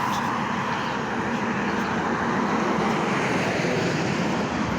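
Steady road traffic noise: passing vehicles making an even rush with a low engine hum.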